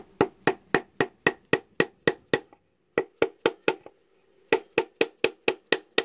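Light, quick hammer taps, about four a second, on a flat metal disc used as a seal driver, gently driving a lip oil seal (joint spi) into a gearbox housing. The tapping stops briefly twice and resumes.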